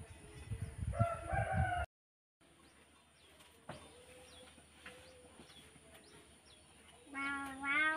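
Rooster crowing near the end, one long wavering call of about a second and a half. A shorter chicken call about a second in is cut off suddenly, and faint bird chirps come between them.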